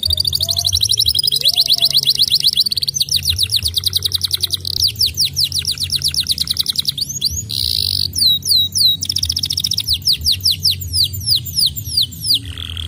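Domestic canary singing a long, rapid trilled song: runs of quick repeated notes that change speed and pattern every second or two, with slower falling notes near the end. A steady low hum sits beneath.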